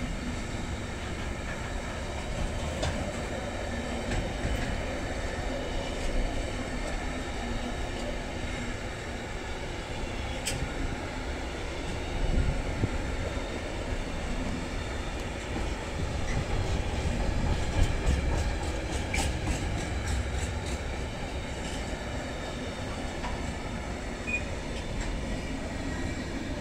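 Freight train of container and tank-container wagons rolling past: a steady rumble of steel wheels on the rails, with a few sharp clicks from the wheels and rail joints.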